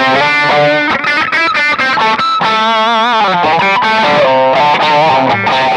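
Seven-string multi-scale electric guitar with three single-coil pickups wired in series, played as a quick run of single notes with vibrato on some of the held notes.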